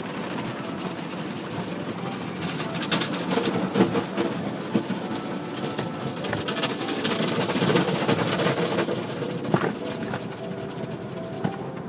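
Automatic car wash's hanging cloth strips slapping and scrubbing over the windshield, heard from inside the car, over a steady wash of spray and machinery. The slaps come thick and loud from a couple of seconds in until near the end, then thin out.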